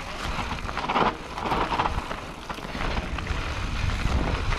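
Rockrider AM100S mountain bike riding down a dirt trail: wind rumbling on the helmet-mounted camera's microphone, tyres on loose ground and the bike rattling in short clicks. There are two louder surges of noise about a second in.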